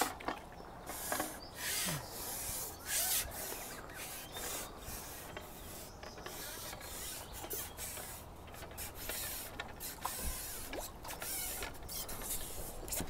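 Fishing pole and tackle being handled while a hooked fish is played and landed: irregular clicks, knocks and rubbing.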